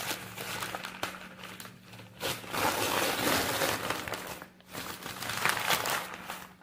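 Brown paper takeaway bag crinkling and rustling as it is handled and opened, in bursts, loudest from about two to four seconds in and again around five to six seconds.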